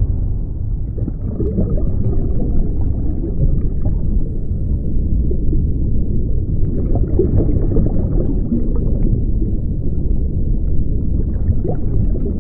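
Underwater ambience: a steady low, muffled rumble with gurgling water.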